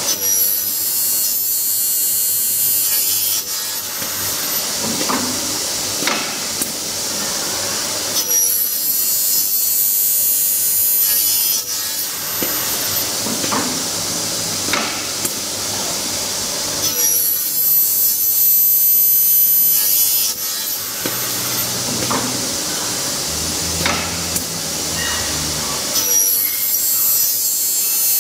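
Double-head aluminium cutting saw cutting 2.2 mm aluminium profile again and again: four cuts, each a high-pitched screech about three and a half seconds long, roughly every eight and a half seconds. Between cuts the blades keep running, with a few knocks.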